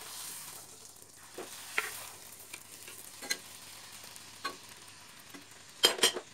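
Wheat-flour puris (golgappas) sizzling as they deep-fry and puff in hot oil in a kadhai. The sizzle is loudest at the start and slowly fades, with a few sharp clicks of a metal spoon against the pan, the loudest pair near the end.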